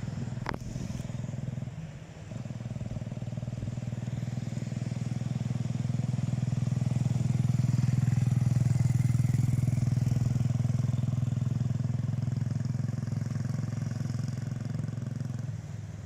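ATV (quad bike) engine running steadily. It dips briefly about two seconds in, then grows louder over several seconds and fades again near the end.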